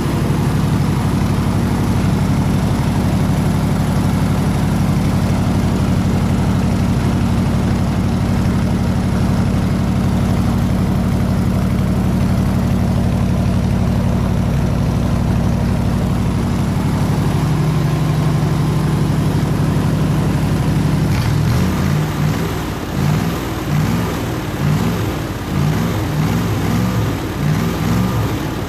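302 V8 engine of an engine-driven air compressor running steadily. About two-thirds of the way through, its speed starts rising and falling repeatedly, roughly once a second.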